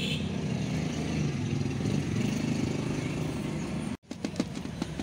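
Steady low rumble of a motor vehicle's engine running. About four seconds in it breaks off, and a quick series of light clicks follows as dry cat food kibble tips out of a plastic container onto concrete.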